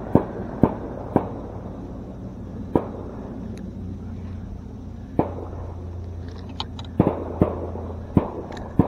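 Gunshots popping irregularly, about ten over several seconds, some in quick pairs.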